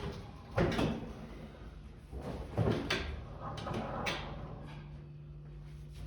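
A heavy household appliance being shifted into place: a series of knocks and scraping bumps in several clusters over the first four seconds, followed by a steady low hum.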